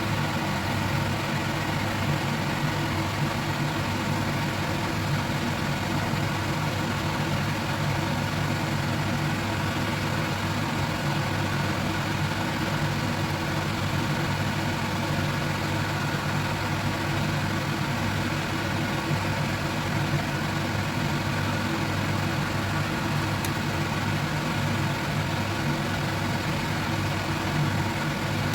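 A motor running steadily with an even, unchanging low hum.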